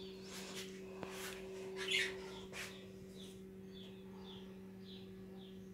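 Ducklings peeping: a run of short, falling peeps, about two or three a second, in the second half, with a few fainter sounds before them. A steady low hum runs underneath.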